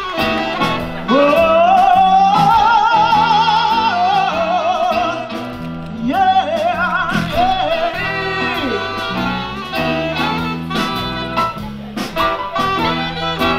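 A male singer with a small live jazz band of drums, bass guitar and saxophone. The voice slides up about a second in and holds long notes with a wide vibrato until about two-thirds of the way through, after which the band carries on.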